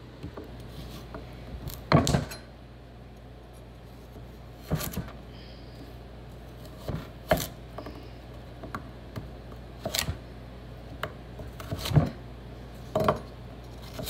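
Kitchen knife cutting carrots on a wooden cutting board: about ten sharp knocks of the blade striking the board, spaced unevenly a second or two apart.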